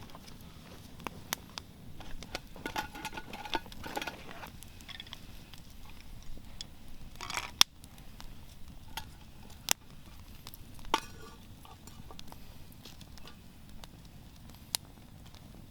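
Scattered light clicks and knocks of small objects being handled, with a short ringing clink about three seconds in; the sharpest knock comes about halfway through.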